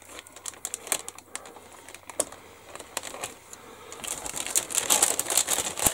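Crinkly plastic parts bag rustling and crackling with scattered light clicks as plastic model sprues are handled, getting busier and louder about four seconds in.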